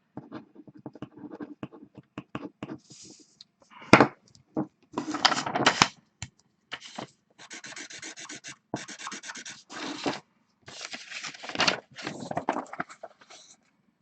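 Handling noise: a series of irregular rubbing and scraping sounds in short scratchy bursts, with one sharper knock about 4 seconds in.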